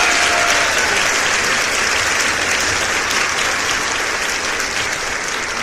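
Crowd applause: many hands clapping in a dense, steady patter that eases off slightly towards the end.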